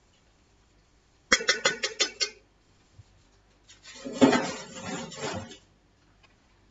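A utensil working in a big aluminium bowl of stew: a quick run of about seven sharp clinks, then about two seconds of scraping and rattling as the contents are stirred.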